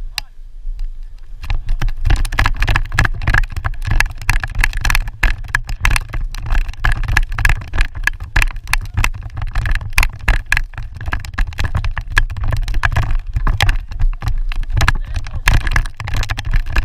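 Wind buffeting the microphone: a loud, uneven low rumble with dense irregular crackling.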